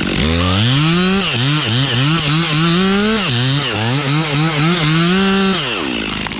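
Two-stroke chainsaw revved up and cutting into a tree, its engine pitch dipping and recovering again and again as the chain bogs in the wood, then dropping back toward idle near the end.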